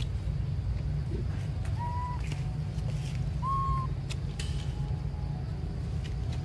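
Two short whistled animal calls, each a steady note under half a second long, about a second and a half apart, over a steady low rumble and a few faint clicks.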